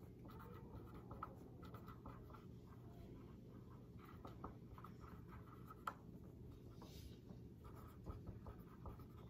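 Faint scratching of students' pencils writing on paper, in small irregular strokes over a steady low room hum.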